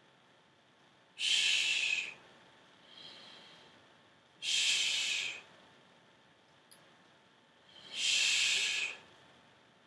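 A person breathing out hard three times, about three and a half seconds apart, each exhalation matched to a side-lying leg lift, with a fainter in-breath between them.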